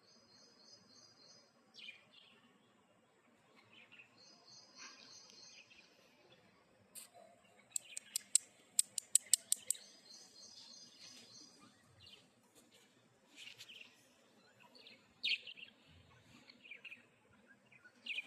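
Pet lovebirds chirping: short, high chirps and trills scattered throughout. Midway there is a quick burst of about ten sharp, loud chirps.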